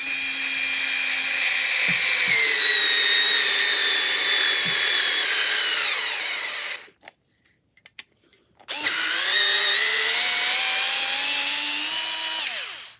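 Parkside PASD 4 B2 4-volt cordless screwdriver driving a wood screw into wood, its motor whine slowly falling in pitch as the load grows, for about seven seconds. After a short pause it runs again for about four seconds with the pitch rising, backing the screw out.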